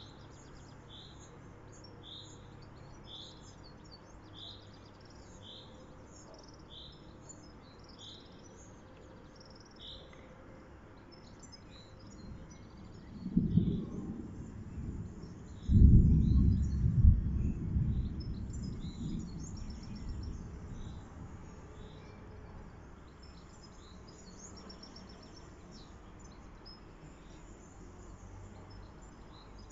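Thunder: a first low rumble about halfway through, then a louder clap that rolls on and fades away over several seconds. Before it, a bird repeats a short call about once a second.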